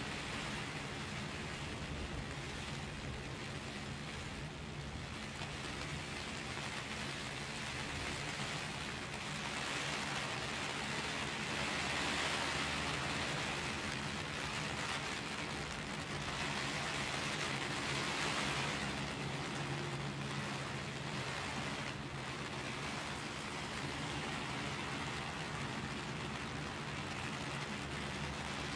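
Heavy rain falling steadily on an umbrella held overhead, with a low, steady city hum beneath it. The rain swells louder twice in the middle.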